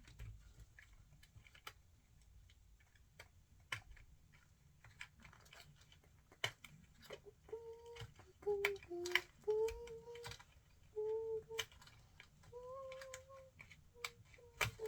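Small clicks and taps of plastic toy pieces and packaging being handled. About halfway through, a child starts humming a few short held notes.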